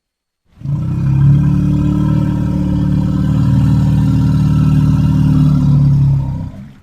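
Elephant giving one low rumble about six seconds long, starting half a second in and stopping shortly before the end.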